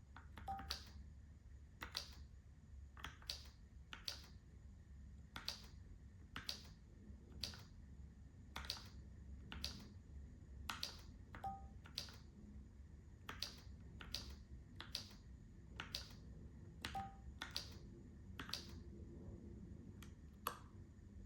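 Keychron K4 v2 mechanical keyboard with Gateron G Pro brown switches being typed on slowly: single separate keystrokes at an uneven pace of about one or two a second, as in beginner home-row touch typing.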